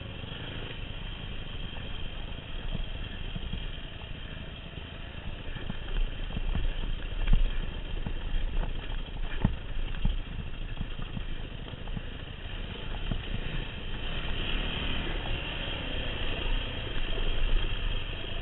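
Yamaha WR250F four-stroke single-cylinder dirt bike engine running at low revs on a rough trail, with scattered knocks and rattles from the bike going over rocks and ruts.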